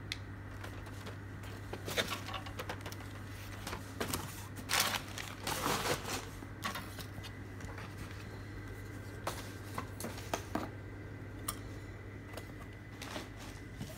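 Cardboard-and-plastic action figure boxes being handled and set on a glass tabletop: scattered light taps and rustles, with a short stretch of crinkling about five to six seconds in, over a steady low hum.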